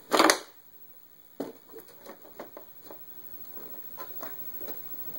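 Small plastic objects knocking and clattering in a wooden drawer as a toddler rummages: one loud clatter right at the start, then a run of light clicks and taps, softer toward the end.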